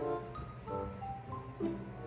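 Background music: a light melody of short pitched notes changing every half second or so, over a steady low bass line.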